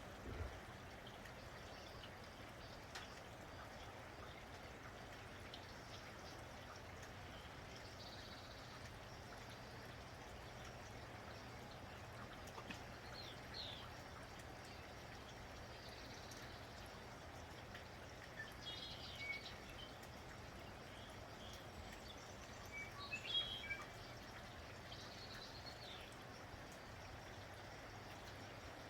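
Steady hiss of light rain with scattered bird chirps, sparse early and busier in the second half; the loudest burst of chirping comes about four-fifths of the way through.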